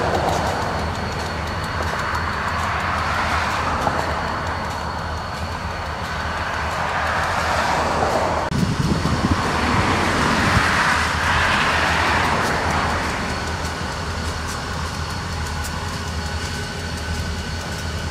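Pan Am Railways diesel-electric locomotive running as it slowly approaches along the track. A steady low engine rumble under a noisy hiss, swelling for a few seconds in the middle.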